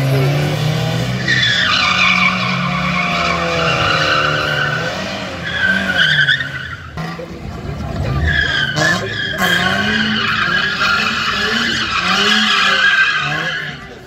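Cars sliding around a cone course: tyres squealing and engines revving up and down. The sound breaks off sharply about seven seconds in, then the revving and tyre squeal pick up again with a second car.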